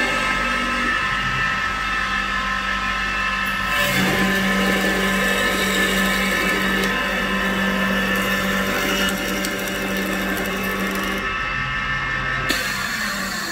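CNC wood turning lathe running, its high-speed milling spindle carving a turning wooden stair handrail blank: a steady motor whine mixed with cutting noise, which gets louder and brighter about four seconds in and shifts again near the end.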